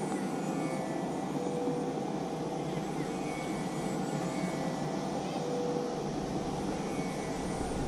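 Steady rushing noise with faint distant voices.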